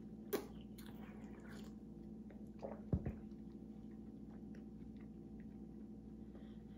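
A person chewing a peanut-butter waffle close to the microphone, with a few sharp mouth clicks in the first two seconds. A low knock about three seconds in, as a small drink carton is set down on the table. A steady low hum runs underneath.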